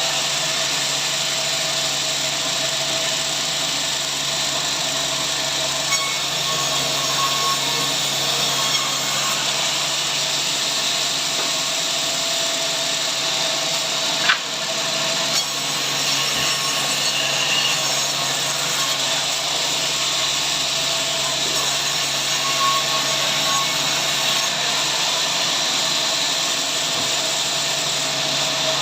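A power saw cutting steadily through a log at a sawmill, giving a continuous high, even sawing noise. There is one sharp click about halfway through.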